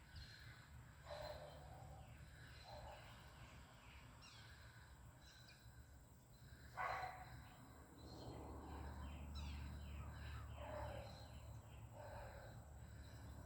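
Faint bird calls: a string of short, harsh calls, the loudest about seven seconds in, with thin higher chirping between them.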